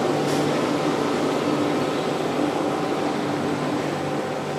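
Steady drone of heavy industrial machinery: a low hum with several steady higher tones over it, swelling a little at first and easing off towards the end.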